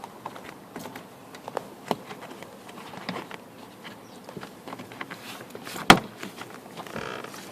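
Small plastic clicks and knocks as car door clips are pressed into place, with one sharp, louder click about six seconds in.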